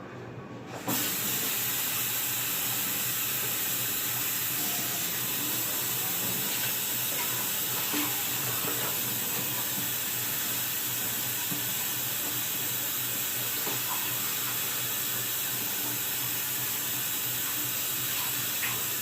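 Kitchen tap running steadily into a sink as a bowl is rinsed out, with a few light knocks of the bowl. The water comes on suddenly about a second in.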